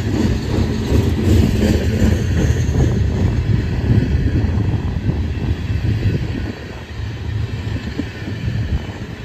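Loaded coal hopper cars of a freight train rolling past on the rails, a steady low rumble with the rapid clatter of wheels on the track. It eases slightly in level a little after the middle.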